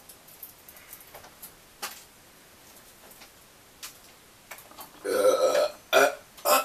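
Faint clicks and rustles of handling for the first few seconds, then, about five seconds in, a loud half-second throat sound from a person, followed by two short loud sounds.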